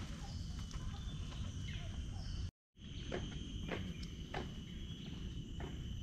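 Insects droning in a steady high tone over a low rumble, with scattered short clicks and ticks. The sound cuts out completely for a split second about halfway through.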